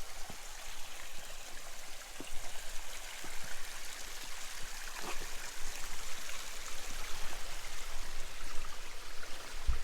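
Creek water running over rocks, a steady rushing hiss, with a few faint knocks scattered through it.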